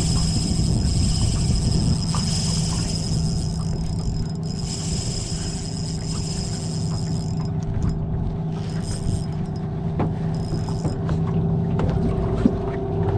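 Small boat's outboard motor running steadily with a low hum, with a high-pitched steady whine over it that cuts off about seven seconds in, and a single sharp click near the end.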